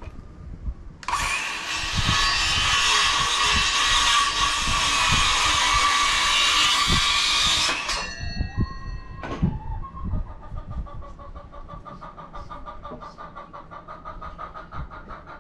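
Power saw cutting through a 2x4 for about seven seconds, then cutting off with a brief ringing as the blade winds down, followed by a single knock. Hens cluck faintly afterwards.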